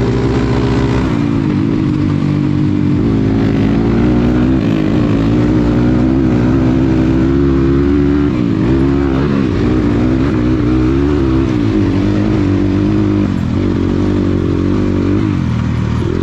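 Dirt bike engine running under way on a rough dirt track, its pitch rising and falling repeatedly as the throttle is opened and closed.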